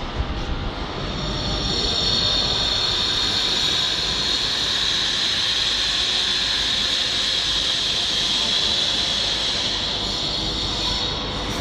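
Moscow metro train running along the platform track: a steady rumble with a strong high hiss that builds over the first couple of seconds and then holds.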